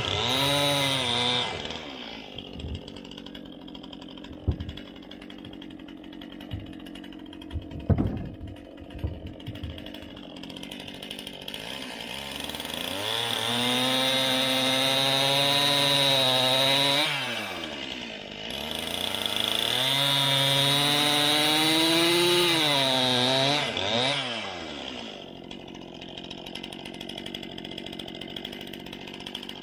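Stihl two-stroke chainsaw cutting points on eastern white cedar fence posts. It runs at full throttle through the wood at the start, then idles for about ten seconds with a few sharp knocks. It revs up for two long cuts with a short dip between them, then settles back to idle near the end.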